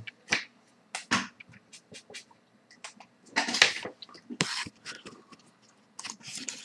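Soft, scattered handling noises, short rustles and taps coming a few at a time with quiet gaps between.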